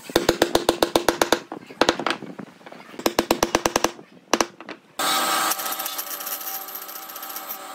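A hardwood block rapping on the top of a pine upright to drive it down into its base: quick runs of sharp taps, about nine a second, with short pauses between runs. About five seconds in, a bandsaw is heard running and cutting a round pine disc, a steady rasping noise.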